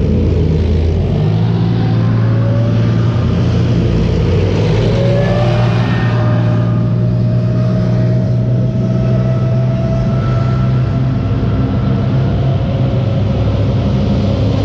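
K2 main battle tanks driving past close by: a heavy, steady engine drone and track noise, with whining tones that glide up and down in pitch as they go by.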